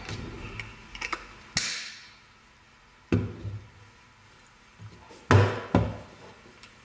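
A stainless steel manual salt and pepper grinder being handled and set down on a wooden desk. Its cap clicks and there is a knock in the first two seconds, then the grinder knocks on the wood about three seconds in and twice more, louder, near the end.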